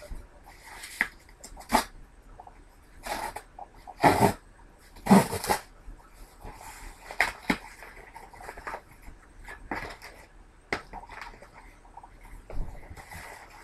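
A cardboard shipping box and its packing being torn open and handled: a run of short rips and rustles, the loudest two about four and five seconds in.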